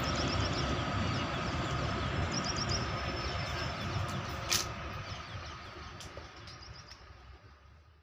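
Diesel-electric multiple unit (DEMU) train pulling away, its rumble fading steadily into the distance. Small birds chirp over it in three quick runs of notes, and there is one sharp click about four and a half seconds in.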